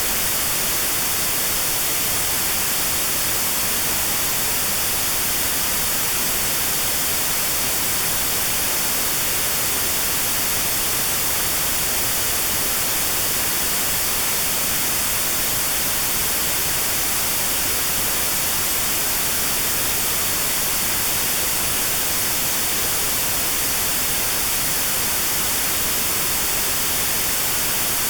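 Steady white noise with a narrow band around 4 kHz filtered out: notched sound therapy for tinnitus at 4 kHz. It is an unbroken hiss, brighter in the treble.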